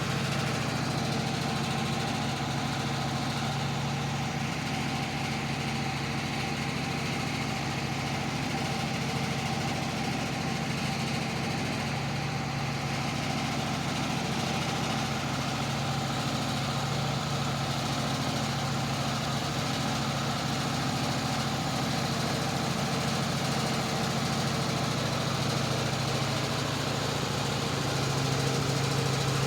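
An engine idling steadily at an even pitch, with no change in speed or load.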